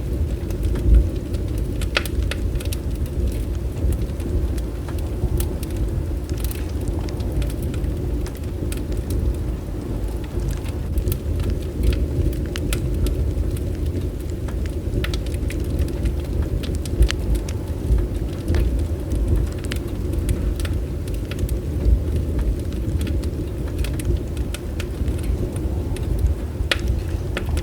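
Bonfire burning: a steady low rumble with many scattered sharp crackles and pops from the burning wood.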